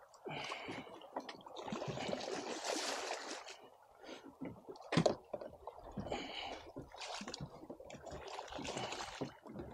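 Water splashing and sloshing against a boat's hull as a hooked bull redfish thrashes at the surface beside it, with a sharp thump about five seconds in.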